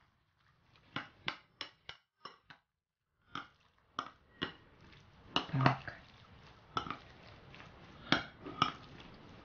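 Metal spoon clinking and scraping against a ceramic bowl while stirring chunky guacamole: a string of irregular light taps.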